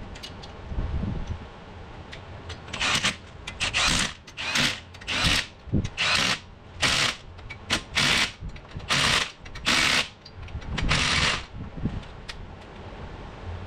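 Power impact wrench run in about a dozen short bursts, driving nuts onto the wheel-adapter studs on a Jeep Cherokee's hub.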